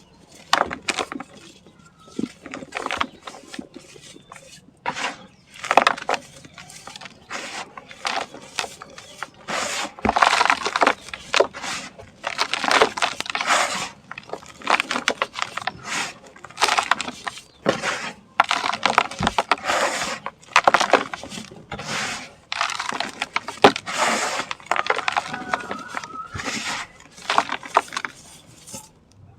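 Dry, dusty sand-cement chunks being crumbled and crushed: irregular crunching and crackling in repeated bursts, some louder and longer than others.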